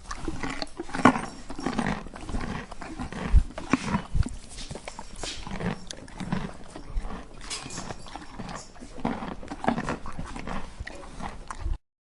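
A horse heard up close, making irregular noises broken by scattered sharp knocks, the loudest about a second in and again around three and a half to four seconds in. It stops abruptly shortly before the end.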